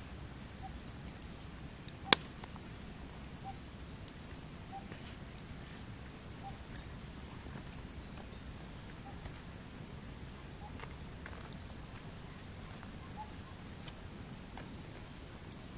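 Steady high-pitched insect drone, with a faint short note repeating about every second and a half. One sharp click about two seconds in is the loudest sound.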